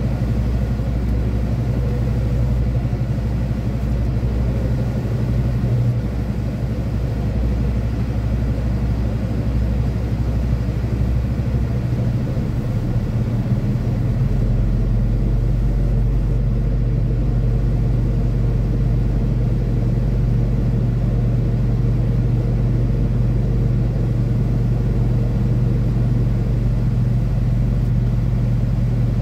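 Semi truck's diesel engine running, a steady low drone, with its note changing about thirteen seconds in.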